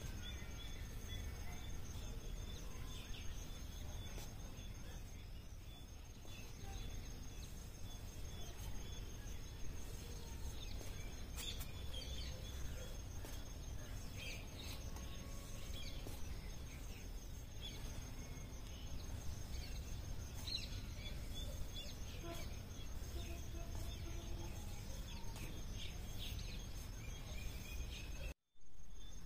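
Outdoor ambience: a steady low rumble with scattered bird chirps and calls and a thin, steady high tone. The sound drops out briefly near the end.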